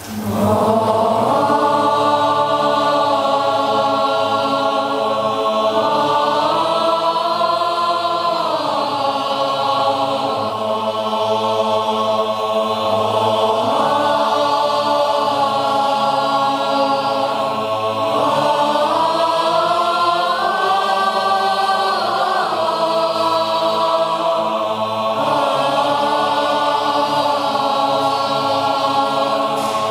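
Boys' and youth choir singing a slow, chant-like piece in long held chords that shift together every few seconds.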